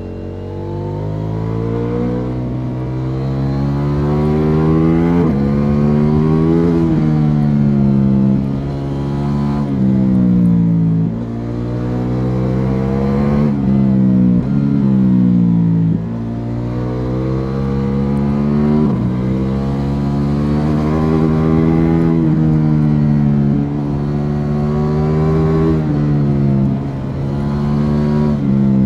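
2021 Ducati Multistrada V4 S's 1158 cc V4 engine through its Akrapovic slip-on exhaust, pulling hard: the revs climb and fall over and over, with sudden drops between gears and as the throttle is rolled off for corners.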